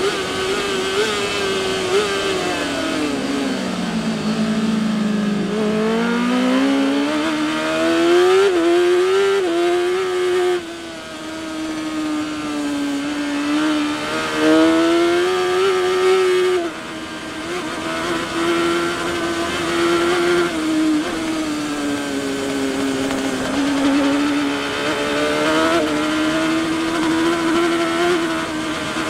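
On-board sound of a superbike racing at full speed, the engine note steady and high. A few seconds in it drops steeply as the rider brakes and shifts down for a corner, then climbs back in rising steps through the gears, with wind rush over it throughout.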